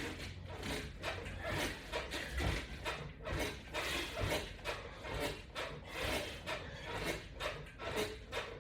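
Rhythmic rasping, rubbing strokes, about two to three a second, from a steady set of a resistance-band exercise.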